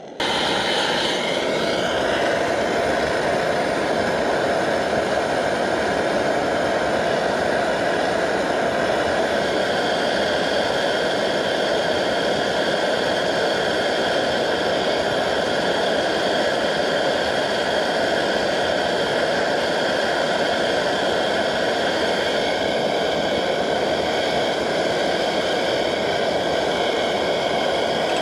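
MSR Dragonfly multi-fuel stove's pressurised burner running at full flame under a pot of water, a loud, steady rushing noise. It starts abruptly and holds unchanged throughout.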